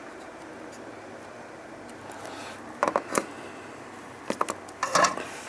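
Small metal hand tools clicking and clattering at the workbench: a few sharp clicks from about halfway through, over a faint steady hiss.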